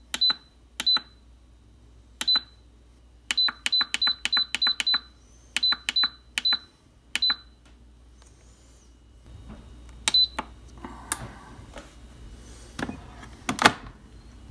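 T-fal 10-in-1 rice and multi-cooker's control panel beeping once per button press, a short high beep each time: single presses, then a quick run of about eight as the cooking timer is stepped up to 45 minutes on the Baking setting, and a last beep about ten seconds in. Near the end come a few knocks, the loudest about a second before the end.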